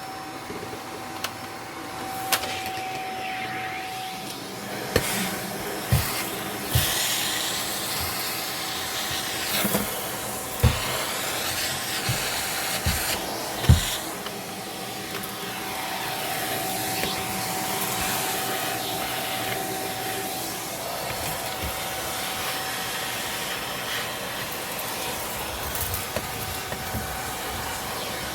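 Vacuum cleaner running, a steady motor whine over the rush of air, with scattered knocks and clicks as it is worked; the loudest knock comes about fourteen seconds in.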